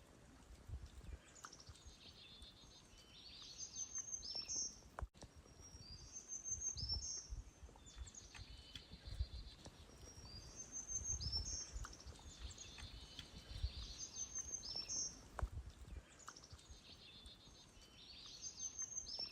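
A songbird singing the same short phrase over and over, a high trill with down-slurred notes, about once every two seconds. Soft low thumps sound underneath.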